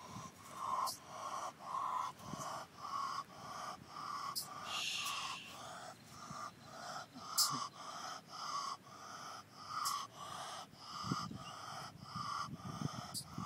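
Baby opossum giving short, sneeze-like calls over and over, about two a second: the call a young opossum makes when it is separated from its mother.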